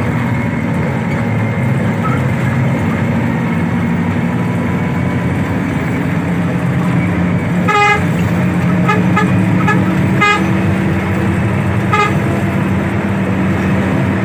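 Bus horn sounding in short toots over the steady drone of the bus engine: one toot about eight seconds in, a quick run of short toots soon after, and another near the end.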